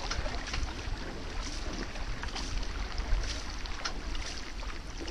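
A paddled canoe moving through the water: a steady rush of water along the hull, broken by small splashes from the paddle strokes, with wind rumbling on the microphone.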